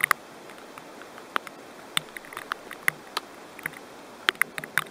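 Scattered raindrops tapping irregularly close to the microphone: a dozen or so sharp ticks at uneven intervals over a steady soft hiss of rain.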